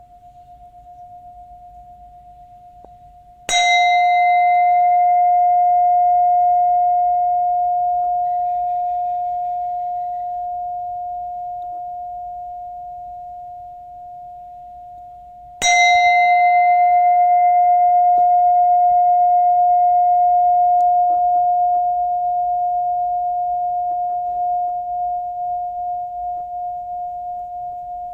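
Buddhist bell struck twice, about twelve seconds apart, each stroke a sharp attack followed by one clear, steady tone with fainter higher overtones that die away slowly. A quieter ring is still fading before the first stroke.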